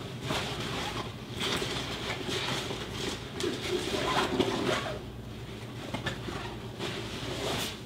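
Room tone: a steady low hum with faint scattered clicks and rustles.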